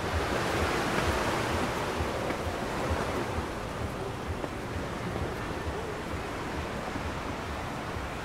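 Steady outdoor rushing noise, swelling a little in the first few seconds, with soft low thumps of footsteps at walking pace, about two or three a second.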